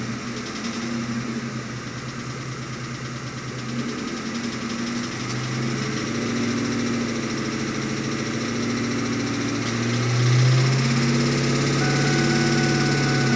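2001 Mustang GT's 4.6-litre V8 running, heard from inside the car, with a rapid knock in time with the engine. The engine note rises and falls and picks up about ten seconds in. The knock comes from a worn connecting-rod bearing: rod knock. A thin steady high tone comes in near the end.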